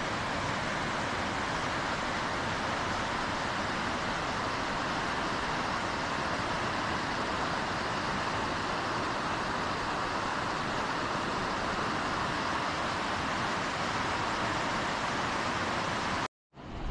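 Steady rush of a mountain river's flowing water. Near the end it cuts off abruptly for a moment of silence, then a quieter water noise begins.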